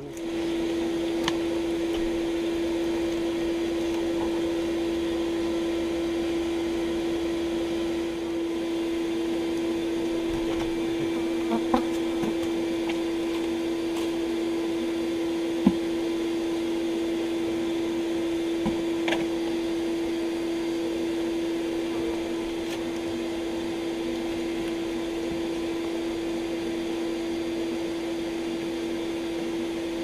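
Bee vacuum running steadily: an even motor hum with one strong steady tone and a hiss. It comes on abruptly and has a few faint knocks and clicks over it.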